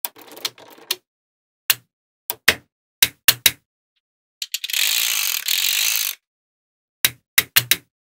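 Small magnet balls clicking sharply as strips of them snap onto the model, in irregular single clicks and quick pairs. In the middle a continuous dry rattle of the balls lasts about a second and a half.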